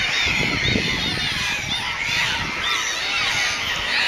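Bottlenose dolphins whistling and squealing, many short arched calls overlapping one after another, with a low rumble in the first second and a half.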